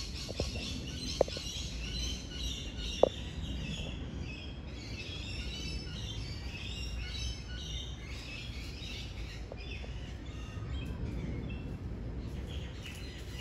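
Small birds chirping and twittering without pause, a dense chorus of high calls. Two short sharp clicks come about one and three seconds in, over a low background rumble.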